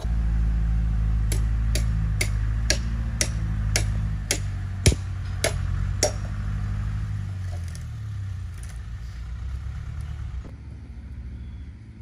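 A motor or small engine running with a steady low drone that stops about ten seconds in, with about ten sharp knocks at roughly two a second over its first half.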